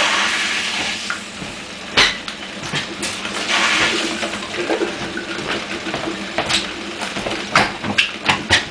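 Home-made Tesla CD turbine blender running: a steady hum with water rushing through the turbine. A sharp click about two seconds in, and a run of clicks and knocks in the last two seconds.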